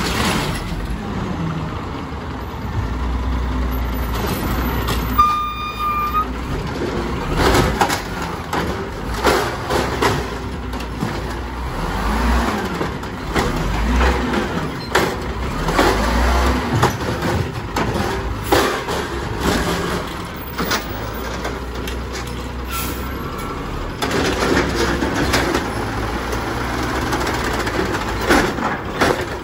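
Peterbilt garbage truck with an Amrep automated side-loader: the diesel engine runs throughout while the hydraulic arm works, with repeated clanks and hydraulic noise as it grabs and lifts a cart. A short beep comes about five seconds in.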